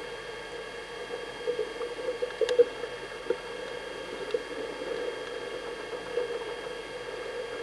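Steady hum and whine of a VHS-C camcorder's own tape mechanism, recorded underwater with a wavering murmur of water, and a few faint clicks with one sharper click about two and a half seconds in.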